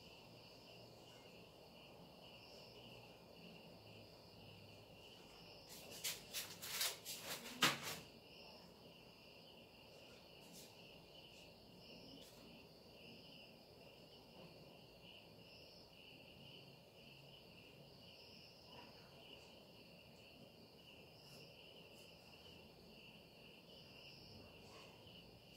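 Faint steady chirring of crickets. A quick run of sharp clicks and knocks comes about six to eight seconds in.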